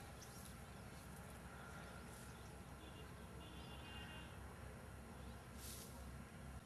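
Faint outdoor background: a low steady rumble with a few faint bird chirps and a short trill, and a brief hiss near the end.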